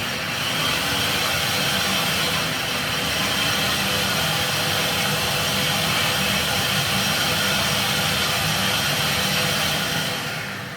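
Electric blender motor running steadily as it blitzes chopped wild garlic leaves for pesto, then switched off and spinning down near the end.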